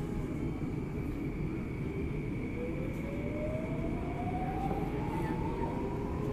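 Downtown Line metro train pulling out of a station, heard from inside the car. A steady rumble runs throughout, with a steady high tone in the first part, and from about halfway through a motor whine rises steadily in pitch as the train picks up speed.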